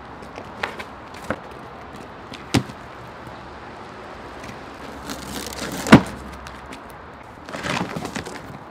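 Cardboard boxes being handled and shifted: a few light knocks, scraping and rustling of cardboard, and one loud thump about six seconds in.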